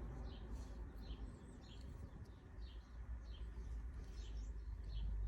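Faint bird chirping, short high chirps repeating about once or twice a second, over a low steady rumble.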